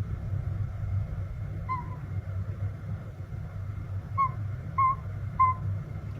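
Small owl giving short, single-pitched toots: one alone, then three evenly spaced about half a second apart, over a low steady rumble.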